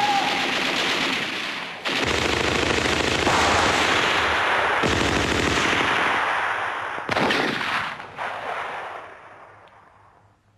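Sustained machine-gun fire, rapid and dense, with a loud sharp burst about seven seconds in, then dying away over the last few seconds.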